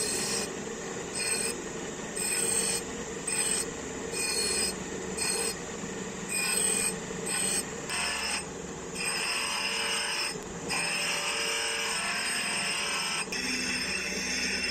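A steel gouge blank being filed by hand in repeated rasping strokes, about one to two a second, each with a high squeal. In the second half the strokes grow longer and run together into a near-steady rasp.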